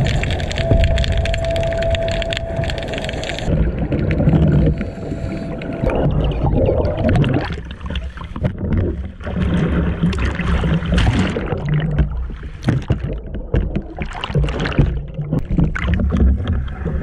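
Underwater sound with a steady whine for the first few seconds, then rough surface chop sloshing and splashing over the camera as a scuba diver surfaces in heavy seas.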